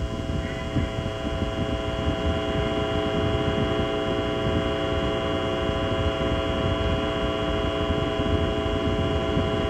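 Steady, deep rocket-launch rumble with a droning hum of several held tones over it.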